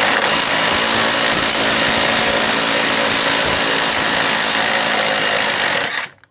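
A power tool fitted with a 24 mm socket runs steadily, spinning the nut off the stud of a Lada Granta's front strut-brace bracket. It stops abruptly shortly before the end.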